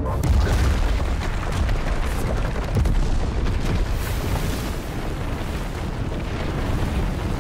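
Action-film sound design for a super-speed run: a dense, continuous deep rumble with heavy booms and a rush of flying debris.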